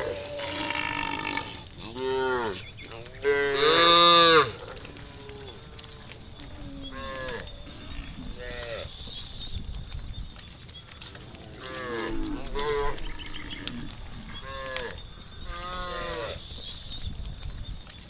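Cattle in a herd mooing again and again, one short call after another, with the loudest and longest moo about four seconds in.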